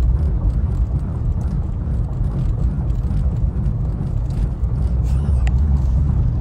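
Steady low rumble of road and engine noise inside a car's cabin.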